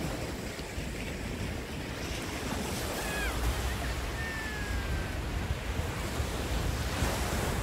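Small waves breaking and washing up a sandy beach, with wind buffeting the microphone in a low rumble. A few faint, short, high whistling sounds come through near the middle.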